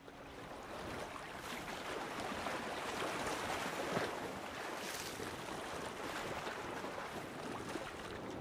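Outboard-powered rigid inflatable boat under way: a steady rush of water and wind, with the motor blended into the noise.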